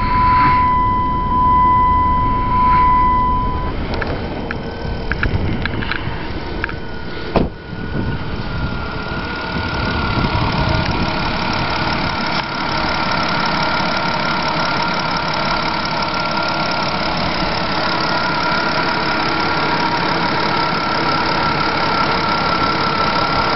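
First-generation Chrysler 3.5 L 24-valve V6, retrofitted into a 2004 Dodge Intrepid, idling steadily. For the first few seconds a steady electronic chime tone sounds over it, and after a short knock about seven seconds in, the engine carries on with a steady high whine over the idle.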